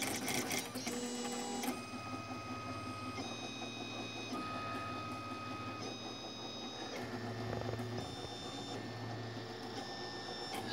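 FDM 3D printer printing: its stepper motors whine in held tones that jump to a new pitch every second or two as the print head changes moves, over a steady low hum.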